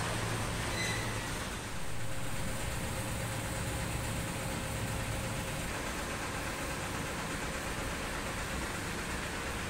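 Steady low hum of idling truck diesel engines in a container yard.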